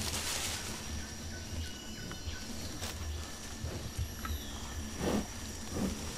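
Tropical forest ambience: a steady high insect trill with a few short bird whistles. A Sumatran rhino browsing in the undergrowth rustles leaves twice near the end.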